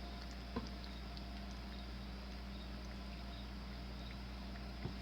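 Two light knocks from a glass jar being handled, one about half a second in and one near the end, with a few faint ticks, over a steady low electrical hum.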